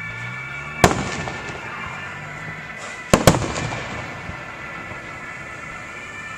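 Firework shells bursting overhead: one loud bang about a second in, then two bangs in quick succession around three seconds in, each followed by a fading echo.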